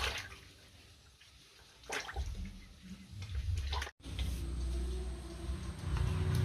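Water splashing and running in short rushes, three in all. After a sudden cut comes a low steady rumble.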